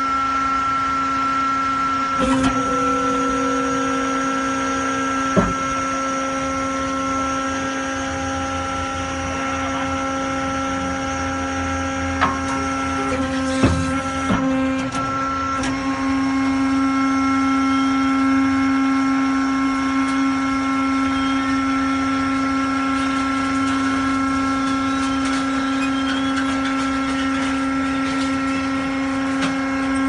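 Hydraulic power unit of a 250-ton scrap metal baler running with a steady whine, its electric motor driving the hydraulic pump, with a few sharp knocks in the first half. The pitch of the whine shifts slightly about halfway through.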